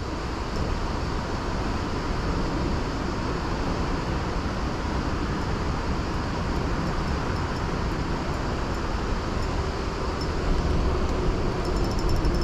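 Steady rumble of road traffic on the bridge overhead, mixed with the river's flow, holding at an even level throughout.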